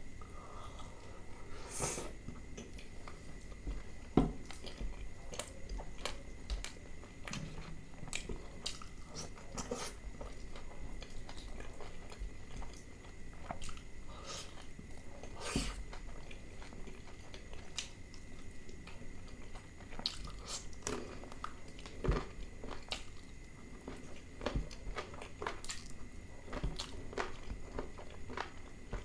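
Close-up eating sounds: a man biting and chewing bread and chicken soaked in butter chicken curry, with a continual run of irregular sharp mouth clicks. The sharpest clicks come about four seconds in and again about twenty-two seconds in.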